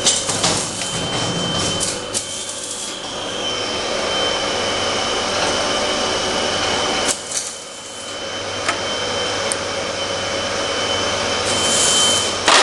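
1IS611V universal screw-cutting lathe running, its motor and gearing giving a steady hum with a high whine. A sharp click comes about seven seconds in, the sound briefly drops and builds back up, and another click comes near the end.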